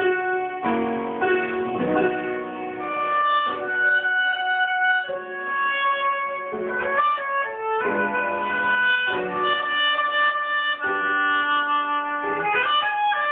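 Oboe played solo, a melody of changing notes in phrases with short pauses between them.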